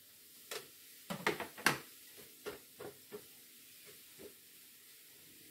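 A spatula and hands tapping and scraping as a crêpe is turned and patted flat on an electric crêpe maker's hot plate: a run of short, light knocks, bunched together in the first couple of seconds and sparser after, over a faint steady sizzle.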